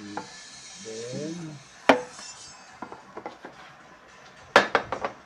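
Wooden spatula scraping and knocking against a nonstick frying pan held over a plastic food-processor bowl, knocking sautéed onion out: a sharp knock about two seconds in, a few lighter taps, and a quick cluster of knocks near the end.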